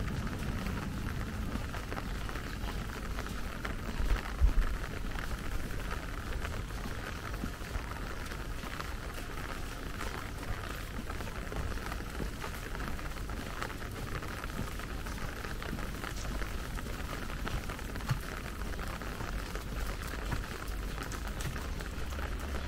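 Steady rain falling on wet paving, with a low thump about four seconds in.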